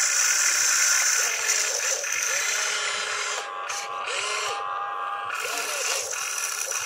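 Hydraulic RC excavator running: a steady motor whine and hiss, with short whines that rise and fall in pitch as the boom, arm and cab move. The hiss drops away for about two seconds midway.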